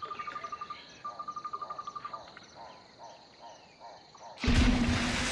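Insects trilling in rapid, evenly pulsed bursts, two trills in the first couple of seconds and then slower chirps. About four and a half seconds in, a sudden loud rushing noise with a low hum cuts in and drowns them.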